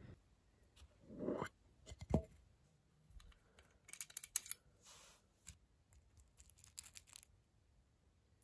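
Small clicks, scrapes and rustles of hands loading a Gat air pistol, with one sharper click about two seconds in and a short clatter of lead pellets in their tin a little later.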